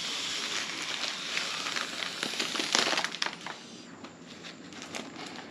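Breath blown through a straw into a foil letter balloon: a steady rush of air, then the foil crinkling and crackling as the balloon fills, about two to three seconds in.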